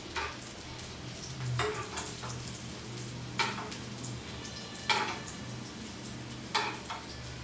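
Rava-coated oil sardines shallow-frying in a little oil in a nonstick pan, sizzling steadily and softly. Five short, louder sizzles come about every second and a half as spoonfuls of oil are drizzled over the fish.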